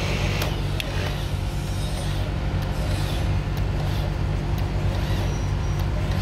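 Hydraulic torque wrench and its pump working a structural steel bolt: a steady low machine hum, with sharp clicks from the wrench about half a second and a second in.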